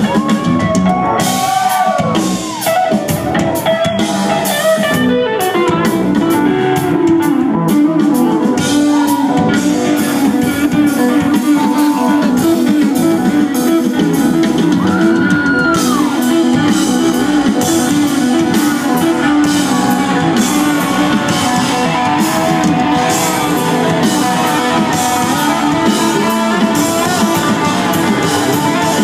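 Live rock band of electric guitar, bass guitar and drum kit playing loudly. The first few seconds hold bent, held guitar notes, then from about five seconds in the band plays a fast, driving riff over the drums.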